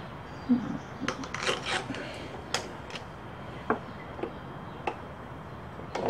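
Hand-handling noise of a carburetor air-intake piece and its gasket being fitted onto a small mower engine: scattered light clicks and taps with some rubbing, the sharpest tap about two and a half seconds in.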